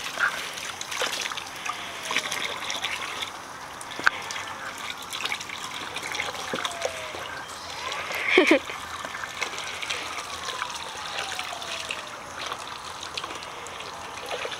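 Water from a garden hose running over a wet dog and trickling and splashing into a plastic basin of water, with a brief louder sound about eight seconds in.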